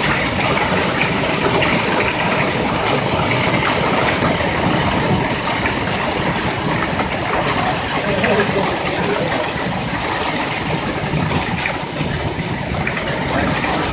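Hail and heavy rain pelting parked cars and pavement: a steady, dense hiss of falling ice and water with many small ticks of hailstones striking.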